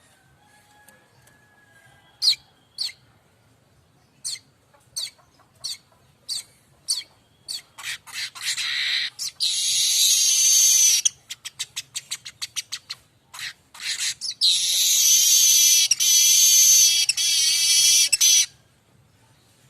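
Weaver (manyar kembang) singing. A run of separate sharp ticks comes faster and faster and runs into a high sizzling buzz, then a burst of rapid clicks and a second, longer buzz that stops about a second before the end.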